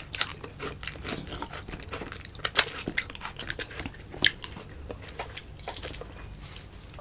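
Close-up eating sounds: chewing and lip-smacking of soft food, with a string of sharp mouth clicks, the loudest about two and a half seconds in and another a little after four seconds.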